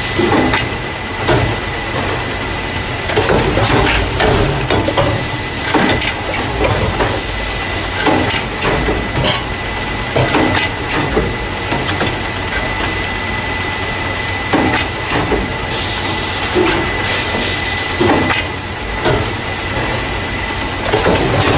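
Carton case packer for juice and milk cartons running: a steady low hum with a thin high whine over it, and frequent irregular clunks and knocks from the mechanism. Stretches of hiss come in about seven seconds in and again near sixteen seconds.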